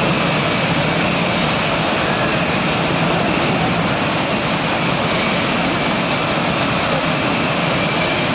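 F/A-18 Hornet jet engines running at low taxi power: a steady, loud rush of jet noise with a high-pitched whine over it.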